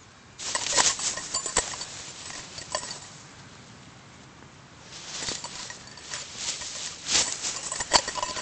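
Tall grass rustling and swishing, with scattered sharp ticks, in two spells: one from about half a second in lasting a couple of seconds, and another from about five seconds in.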